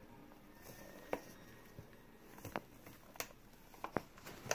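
About five faint, sharp taps and clicks, spread a second or so apart, over a quiet room background; the last ones near the end are the loudest.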